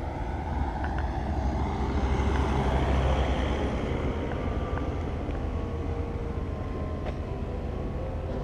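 Street traffic with a steady engine rumble, as a vehicle passes and swells to its loudest about three seconds in before fading back.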